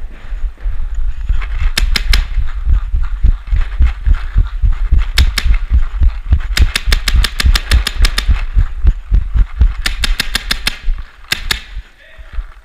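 Paintball markers firing in strings of sharp shots, the longest a fast run of about a dozen at roughly six a second, with shorter bursts of two to six shots before and after. Heavy low thuds and rumble sit under the shots throughout.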